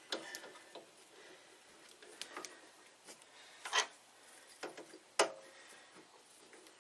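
Light, irregular clicks and knocks of a bench drill press chuck and small tools being handled by hand, with two sharper knocks about four and five seconds in.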